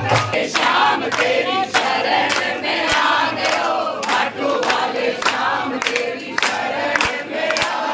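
A group singing a bhajan together, with sharp beats keeping time about two and a half times a second.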